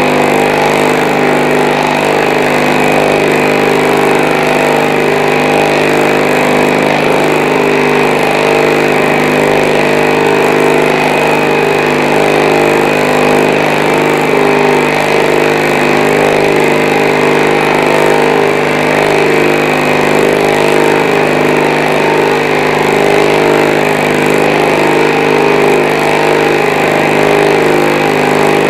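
Experimental pulsed magnetic motor running at a steady speed, its heavy rotor carrying eight large electromagnet coils spinning inside a ring of permanent magnets. It makes a loud, steady machine hum made of several steady tones.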